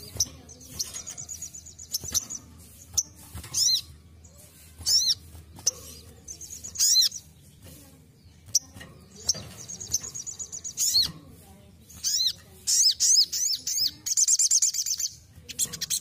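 Sunbird (sogon) singing: a string of sharp, high chirps broken by several quick, buzzy trills.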